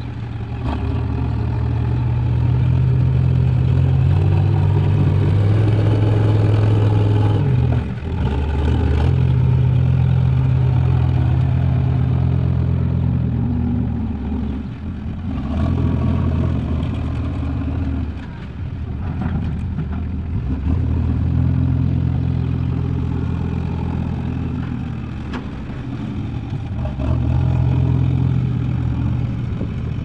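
Diesel engines of a JCB 3DX backhoe loader and a Sonalika tractor running. The engine note repeatedly rises and drops back as the backhoe works.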